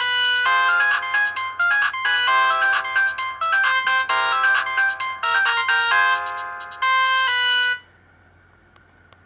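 Sony Ericsson W810i playing a polyphonic ringtone from the K200i, a synthesized melody of short, quick notes. It cuts off abruptly about three quarters of the way in, leaving a quiet pause with a couple of faint clicks.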